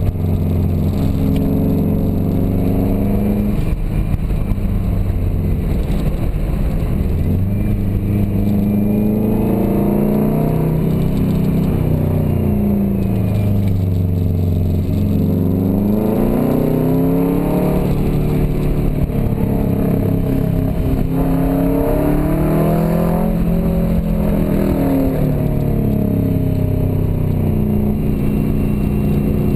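Turbocharged Subaru Forester XT flat-four engine heard from inside the cabin, pulling hard and easing off again and again through a run of corners, its pitch rising and falling repeatedly. The car is COBB-tuned.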